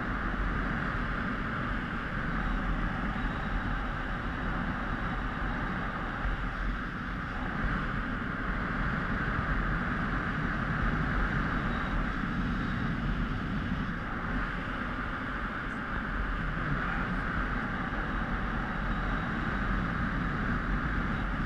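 Steady rush of wind over a helmet-mounted GoPro as a tandem paraglider flies, the airflow buffeting the microphone without a break.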